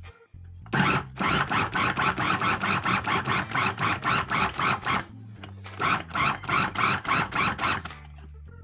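Electric food chopper grinding a thick paste of garlic, dates and thyme, in two runs: about four seconds, a short stop, then about two more seconds. The grinding has a fast, even pulse.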